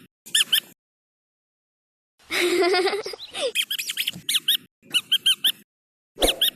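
Squeaky dog toy squeezed over and over, giving short squeaks that rise and fall in pitch, in quick clusters of two to four. A longer, harsher squeal of about a second comes about two and a half seconds in.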